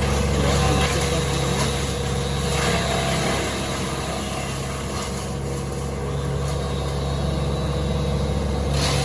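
Engine of a tree crew's wood chipper running steadily with a constant low hum.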